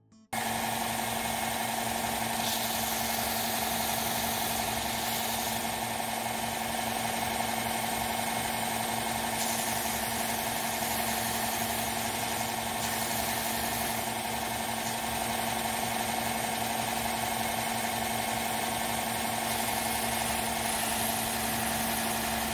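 Belt sander running steadily at a constant pitch while a small plastic pipe fitting is held against the belt to shave its nubs down.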